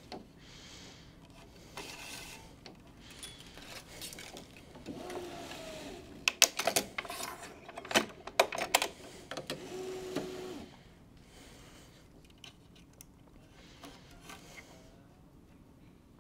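Stringing machine in use on a tennis racquet: string being handled and drawn through, then the tension head pulls the string with a brief mechanical hum and a run of sharp clicks from the clamp and mechanism, between about five and eleven seconds in.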